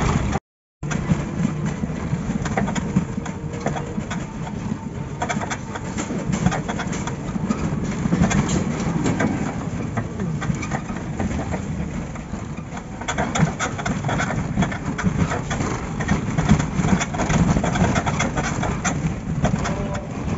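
Cab noise of a moving auto-rickshaw heard from inside: a steady low drone with continual rattling of the body and road noise.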